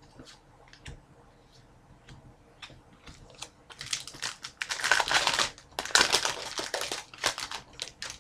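Foil wrapper of a hockey card pack crinkling loudly as it is torn open, in dense bursts lasting a few seconds, after a few light clicks.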